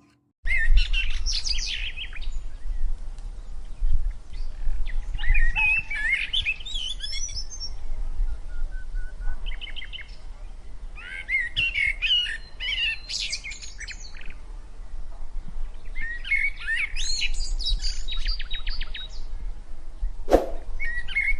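Birds chirping and singing in repeated bursts of quick rising and falling notes, over a low steady rumble, with a sharp click near the end.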